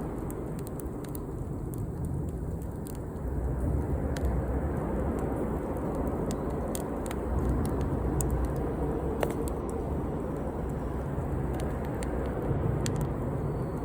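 Wood campfire crackling, with irregular sharp pops and snaps scattered throughout over a steady low rumble.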